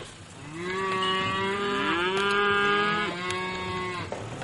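Cleanskin (unhandled, unbranded) scrub cattle bellowing: long moos that rise in pitch and hold for about three seconds, two calls overlapping.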